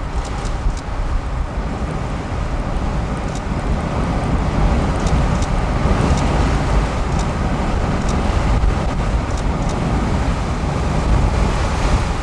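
Steady road and wind noise inside a moving car, a low rumble with a scatter of faint ticks.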